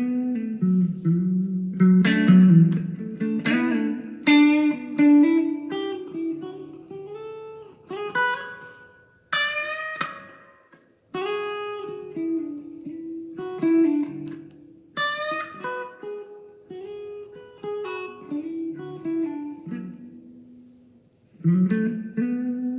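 Solo guitar playing a slow picked piece, single notes and chords struck and left ringing, with a couple of pauses where the sound dies away.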